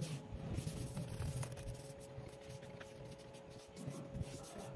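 Tissue rubbing over a laptop's aluminium deck and screen edge: an irregular dry wiping, with a faint steady hum underneath.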